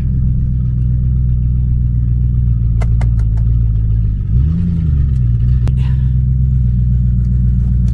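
The Lincoln's engine idling steadily, with one brief rev that rises and falls about four seconds in.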